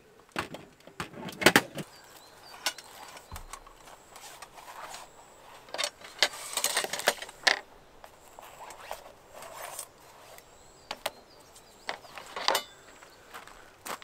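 Gear being handled: irregular sharp clicks and knocks with short stretches of rustling. The loudest knocks come about a second and a half in, and there is a busy cluster of them around six to seven seconds in.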